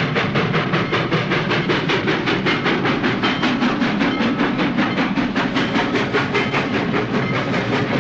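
Steam locomotive running fast: a rapid, even chuffing of about five beats a second that holds steady throughout.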